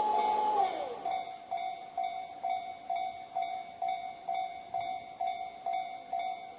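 Japanese level-crossing warning bell ringing in an even, steady rhythm of about two strokes a second. In the first second a held tone slides down in pitch and fades out.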